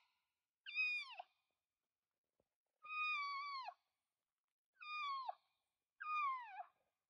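Elk cow mews: four high, whiny calls, each dropping in pitch at its end and lasting under a second, spaced one to two seconds apart.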